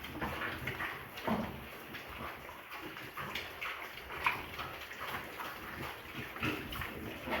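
Pigs grunting and moving about in a pen, with scattered short knocks.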